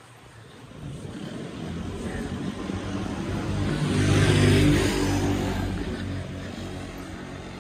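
A passing motor vehicle: an engine hum with road noise that builds steadily, peaks about four and a half seconds in, then fades away.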